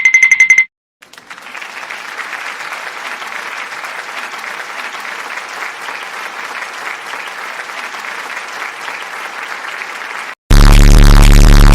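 Sound-effect clip of a crowd applauding steadily for about nine seconds, cut off abruptly. Just before it a beeping electronic tone ends, and near the end a very loud, distorted low buzz starts.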